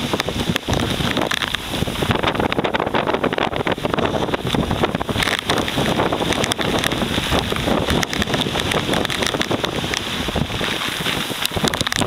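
Typhoon storm wind gusting hard and buffeting the microphone with a constant, loud rushing roar.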